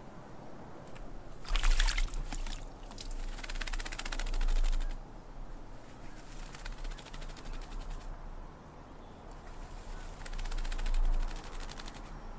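A tūī bathing in a shallow water bowl: several bursts of rapid splashing and wing-fluttering as it shakes its feathers, with pauses between. There are low rumbles near the middle and near the end.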